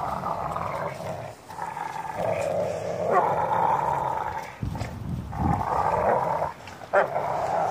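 American pit bull terriers growling as they bite and tug on a spring pole rope, in long growls of a second or more broken by short pauses.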